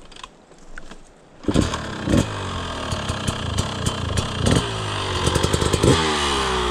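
Dirt bike engine starting up suddenly about a second and a half in, then running with its pitch rising and falling as it is revved.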